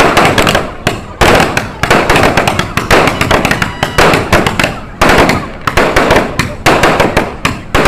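Fireworks and firecrackers going off in a dense barrage of sharp bangs and cracks, many per second, with a couple of brief lulls.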